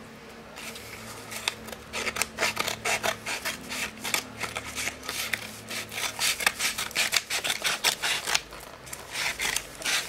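Kraft paper parcel wrapping crinkling and rustling as hands work it open: a rapid, irregular run of paper crackles.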